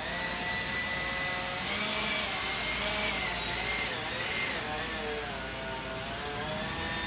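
A motor running with a steady whine that wavers in pitch, louder about two to four seconds in.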